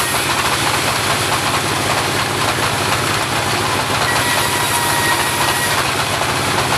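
Homemade portable bandsaw running steadily, its motor giving an even low pulsing under a broad hiss. A faint thin whine rises over it about four seconds in and lasts a second and a half.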